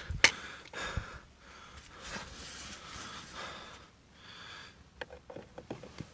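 Handling noise while a speaker screw is fitted with a magnetic screwdriver: a knock just after the start and a lighter one about a second in, soft scuffing through the middle, then a few small clicks near the end.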